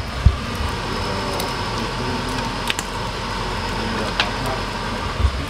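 Bacon sizzling in a frying pan: a steady hiss with scattered small pops and crackles. A single thump comes just after the start.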